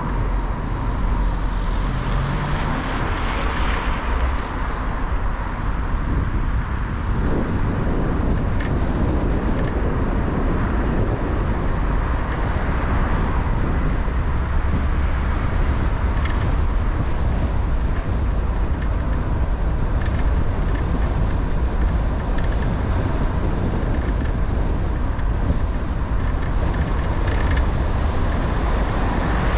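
Car driving along a road: steady tyre and engine noise with a strong low rumble. A high hiss fades out about six or seven seconds in.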